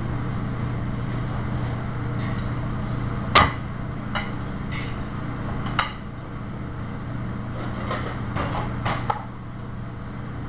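Scattered metal clanks and knocks of pots and utensils over a steady low kitchen hum. The loudest clank comes about a third of the way in, and a quick cluster of three knocks comes near the end.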